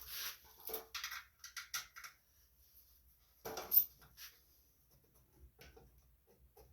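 Engine shroud on a Tecumseh engine being shifted and fiddled into place by hand while lining up its bolt holes: scattered light clanks, taps and scrapes, the loudest knock a little under four seconds in.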